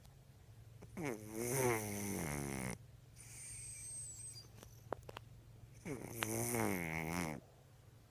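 A cat snoring in its sleep: two long, loud snores about five seconds apart, with a quieter breath between them.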